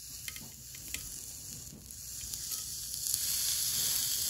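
Beef fillet steak sizzling on a hot iron griddle plate: a steady frying hiss with scattered pops of fat, growing louder over the last couple of seconds.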